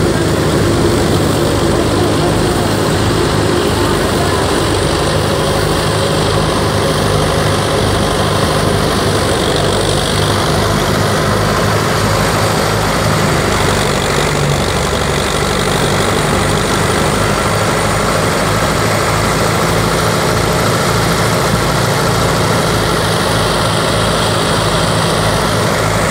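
A tractor's diesel engine runs steadily under load while it drives a wheat thresher, with the thresher's running noise mixed in. The level stays loud and unchanging throughout.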